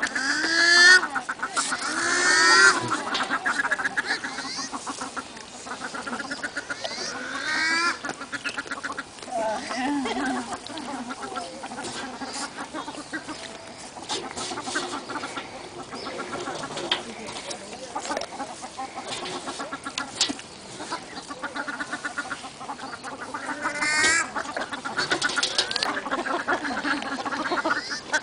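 Farmyard fowl, ducks and chickens among them, calling over and over: a chorus of short rising calls, loudest near the start and again near the end.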